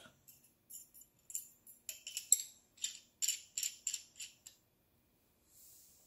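Light metallic clicks and ticks from a metal cigar draw tool being fitted back into its knurled metal tube case: an irregular quick run of about fifteen small sharp clicks over about four seconds.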